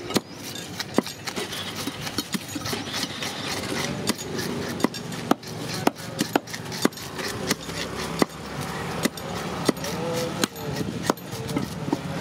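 Scales being scraped off a large murrel (snakehead) fish with a flat metal blade on a wooden block. Rasping scraping strokes, with a sharp click every second or so as the blade strikes.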